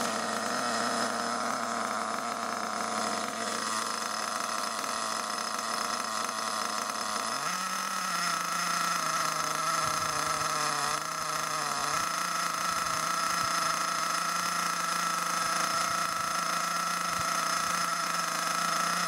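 HPI Savage XL's 5.9 cc two-stroke nitro engine idling steadily on a stand, still cold during break-in. Its pitch steps up slightly about seven seconds in.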